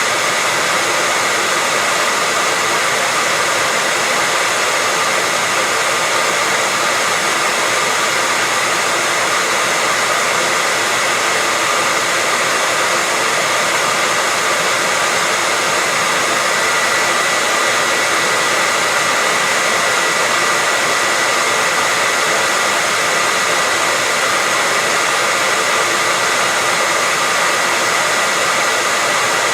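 Hair dryer running steadily, a constant rushing hiss of air with a thin high whine on top, played as white noise to soothe a baby to sleep.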